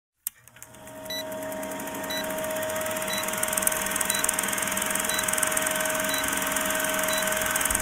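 Vintage film countdown leader effect: an old film projector running with fast, even clatter, hiss and a steady hum. A short high beep sounds once a second as the numbers count down.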